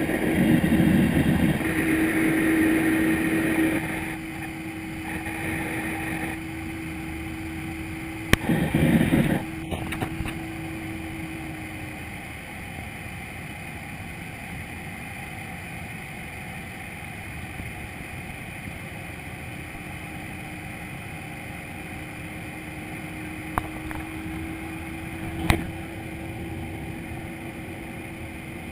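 Cabin noise of a Boeing 737-800 climbing after takeoff, heard at a window seat beside the wing: the steady rushing noise of its CFM56 jet engines and airflow, with a steady hum. It is louder for the first few seconds and then settles lower, with a few short clicks along the way.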